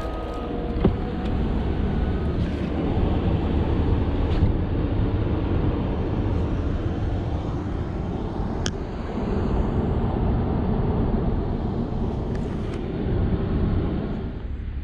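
A snow-plowing vehicle's engine running steadily, with a few faint clicks over it.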